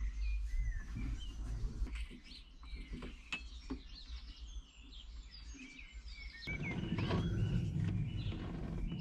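Small birds chirping and singing, with scattered light knocks and rustling from a cable being handled along a tractor cab's windscreen frame; a fuller rustling starts about two thirds of the way through.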